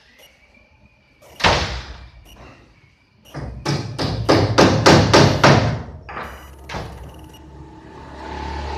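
A single thud, then a quick run of about eight knocks, about four a second, and two more separate knocks; a steady hum begins near the end.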